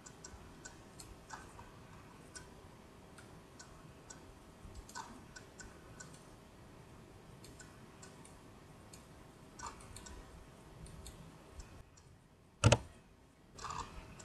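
Scattered faint clicks of a computer mouse and keyboard as blocks are dragged and a value is typed, with one much louder sharp click near the end.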